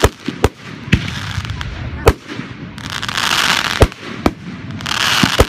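Fireworks display with aerial shells bursting: about seven sharp bangs at irregular spacing. Between them come stretches of dense hiss, around three seconds in and again near the end.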